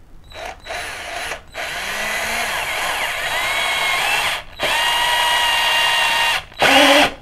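Xenon CDD 505 cordless drill driving a screw into wood through its flexible shaft extension. The motor runs in spurts: two short ones, then two longer runs of a few seconds each with a steady whine, and a short louder burst near the end.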